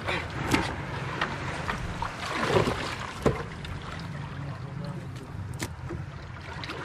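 Small fishing boat's engine running steadily, with several sharp knocks and clatters over it.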